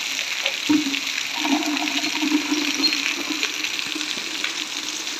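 Heavy rain hissing steadily on the ground and concrete, with water splashing around a hand pump. A low steady hum comes in about a second in and carries on under the rain.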